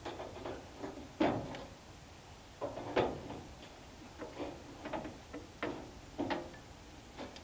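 A caulking gun being squeezed over and over while sealing a stovepipe's storm collar, its trigger and plunger rod clicking and creaking in short, irregular strokes, about two a second. The loudest clicks come about a second in and again about three seconds in.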